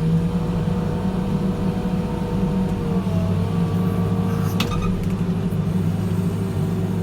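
New Holland backhoe loader's diesel engine running steadily under working load, with a faint steady whine above the engine and a single sharp click a little past halfway.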